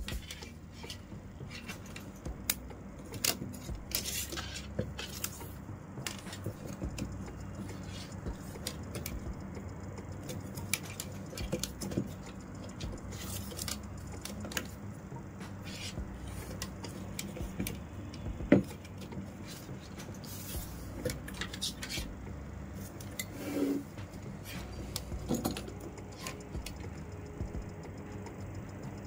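PE plastic rattan strands being handled and woven by hand: scattered light clicks, taps and rustles, with a louder knock about eighteen seconds in, over a steady low hum.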